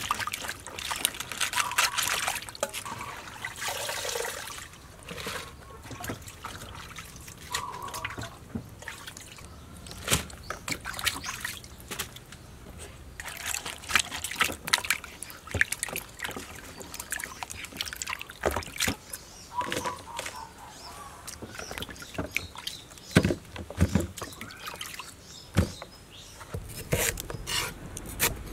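Hands swishing and rubbing vegetables in a basin of water: sloshing, trickling and dripping with irregular splashes. Near the end, a knife chops on a wooden cutting board in quick, even strokes.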